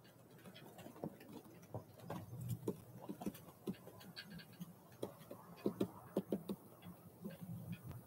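Small black-capped tit pecking at a mesh suet bag close to the microphone: irregular sharp beak taps and clicks, coming in a quick cluster about five to six and a half seconds in.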